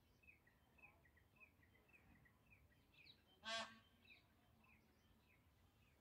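Indian peafowl giving one short honking call about halfway through, over faint high chirps from a bird repeating about twice a second.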